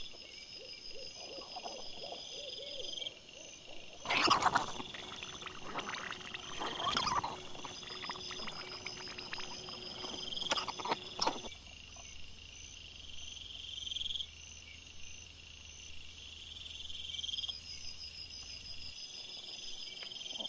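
Night insects, crickets, chirping in a steady, pulsing high chorus, sped up four times. From about 4 to 11.5 seconds a stretch of loud rustling, snuffling and short grunts comes from wild boar and striped piglets rooting right beside the trail camera.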